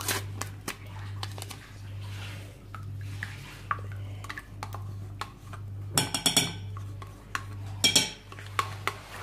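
Metal spoon clinking and scraping against a glass mixing bowl as yogurt is scraped from its pot into the egg batter, with the sharpest clinks about six and eight seconds in. A steady low hum runs underneath.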